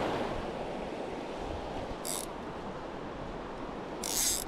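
River water flowing in a steady wash. Two brief high-pitched scuffs come about two seconds in and again near the end.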